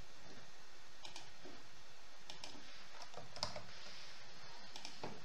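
A few faint, scattered clicks of a computer keyboard and mouse during spreadsheet data entry, over a steady background hiss.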